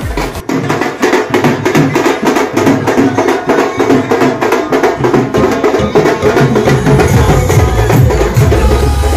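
Dhol drum beaten in a fast, driving rhythm of sharp strokes, several a second, with a deeper bass layer coming in near the end.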